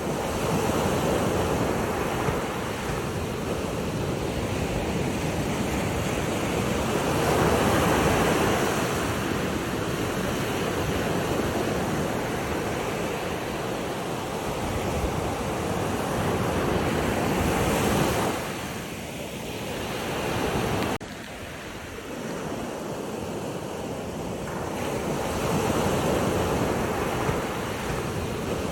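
Sea waves breaking and washing in, swelling and ebbing every several seconds, with a sudden drop in level about 21 seconds in.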